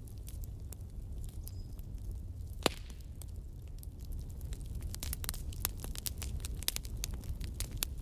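Wood fire crackling in a fireplace over a steady low rumble, with one sharp pop about a third of the way in and the crackles coming thicker in the second half.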